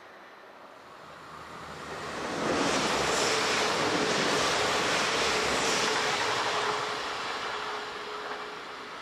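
Electric multiple-unit passenger train passing close by on an electrified line: a rushing of wheels on rails that builds over about two seconds, stays loud for about four seconds with a steady hum under it, then fades as the train runs away.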